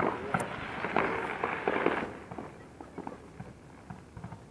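Firework crackling: a dense spray of small rapid pops and fizz that dies away about two seconds in, then a few scattered faint pops.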